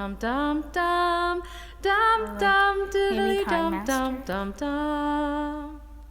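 A song playing back: a single high singing voice, almost unaccompanied, holding notes and sliding between them, dying away near the end.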